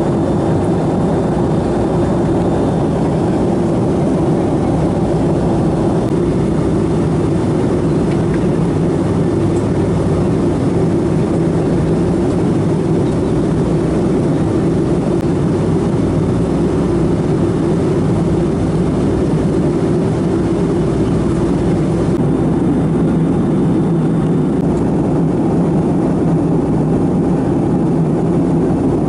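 Steady cabin noise inside a Boeing 757-200 in flight: the constant low rush of airflow and jet engines, unchanging throughout.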